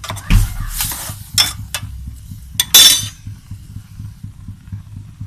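Metal utensils clinking and knocking against a cooking pot as cut potatoes go in, a handful of sharp clinks with the loudest ringing clatter about three seconds in, over a low steady hum.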